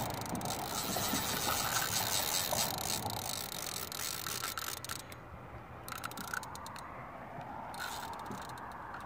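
Spinning reel's drag clicking rapidly as a hooked tarpon strips braided line off the spool, thinning to scattered clicks about five seconds in.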